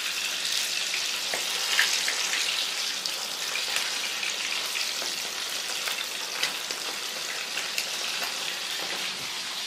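Flour-dredged chicken legs deep-frying in hot oil in a cast-iron skillet: a steady sizzle with fine crackling as the pieces go into the oil.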